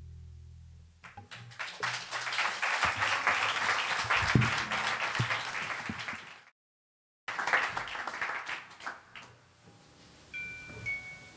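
Last notes of an acoustic guitar dying away, then an audience applauding. The applause cuts out suddenly for under a second, comes back and fades, and a few high chime-like notes start near the end.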